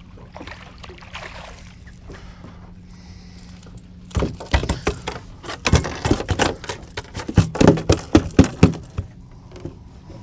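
A fast, irregular run of knocks and slaps on the boat's deck as a freshly landed fish is handled and unhooked. It starts about four seconds in, grows loudest near the end and stops about a second before the end, after a quieter stretch of light water and wind hiss.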